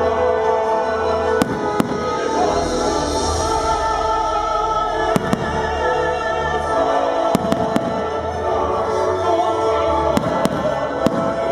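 Aerial fireworks bursting with about ten sharp bangs, several coming in quick pairs, over loud music.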